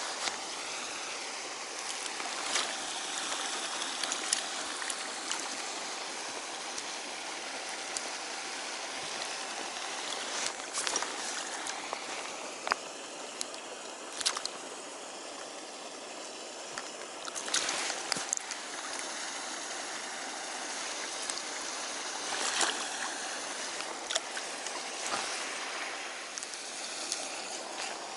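Steady rush of running water, with short clicks and knocks every few seconds.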